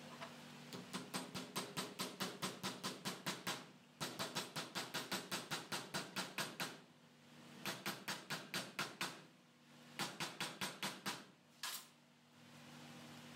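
Hammer tapping a bushing into the bore of a cast-iron truck gearbox lever held in a vise: quick light blows, about six a second, in four runs with short pauses, and one single knock near the end.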